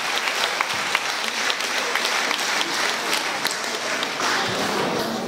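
An audience applauding, a dense steady clapping with individual claps standing out.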